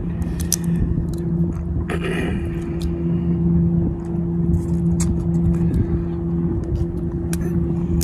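An engine running steadily at an even pitch, a constant low hum, with light clicks and crackles of shrimp being peeled by hand over it.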